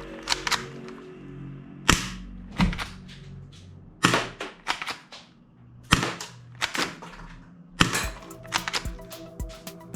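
Toy guns firing sharp cap-gun-like pops, single shots spaced about a second apart, then a quicker string of shots near the end, over background music.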